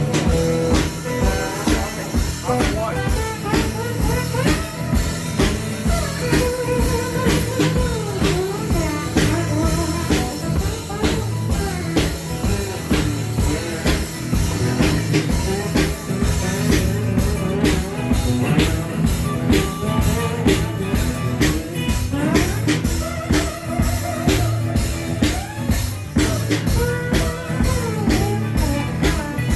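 Rock band playing an instrumental passage: electric guitar lead lines bending in pitch over a steady drum-kit beat.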